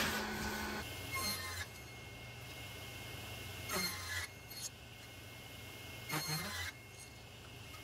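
Table saw running with a steady hum, and three short bursts about two and a half seconds apart as the blade cuts strips off a small square hardwood block.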